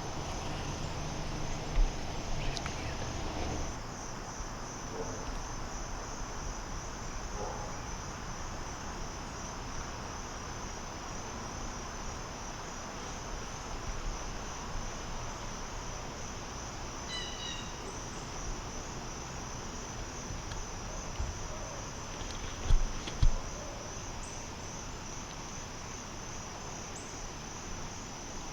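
Evening chorus of crickets: a steady, finely pulsing high trill. A low thump sounds about two seconds in, and two more close together a little past the two-thirds mark.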